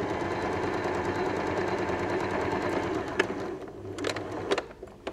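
Domestic electric sewing machine stitching steadily through cotton fabric, hemming the folded corners. It stops a little over halfway through, followed by a few light clicks.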